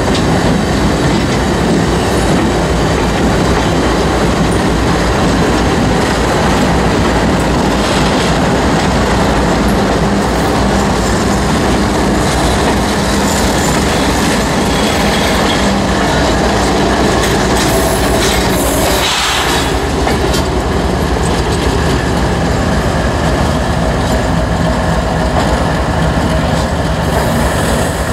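Diesel freight locomotives passing close by, their engines running with a steady low drone and their steel wheels rolling on the rails.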